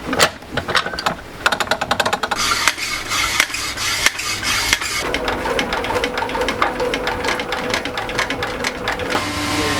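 Industrial sewing machine stitching shoe material: a fast, even run of needle strokes with a motor hum underneath.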